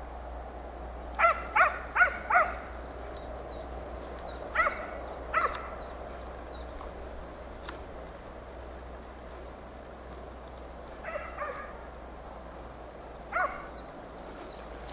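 Hunting dog barking on a hare hunt: a run of four quick barks, two more a few seconds later, then a couple of fainter barks and a single bark near the end. Small birds chirp faintly in between.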